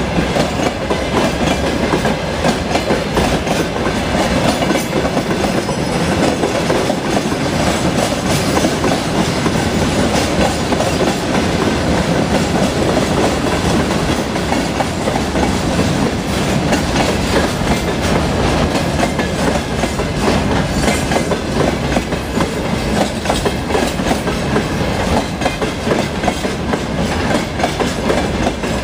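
Train wheels clattering steadily over rail joints under a continuous rumble, a train running along the track at speed.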